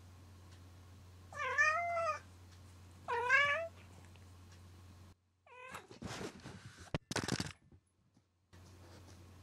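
A cat meows twice, each call rising then falling in pitch, then gives a shorter third meow. After that comes loud rustling and knocking as the camera it is next to is knocked over.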